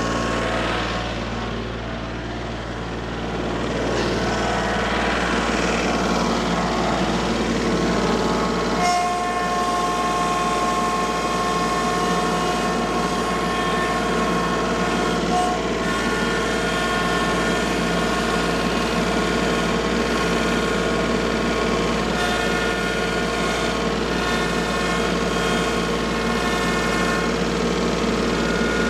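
Farm tractor's engine running steadily while it manoeuvres, louder from about four seconds in.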